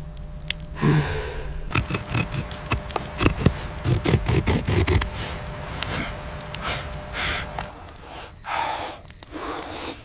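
Breathy gasps and a short grunt, with a run of sharp clicks and knocks from about two to five seconds in.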